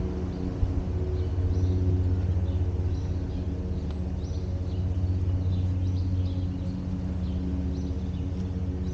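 A steady low mechanical hum drones without a break, with short bird chirps repeating high above it.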